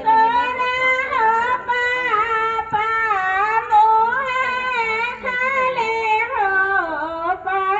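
A high female voice singing a slow melody with long, wavering held notes. It starts abruptly and is loud throughout.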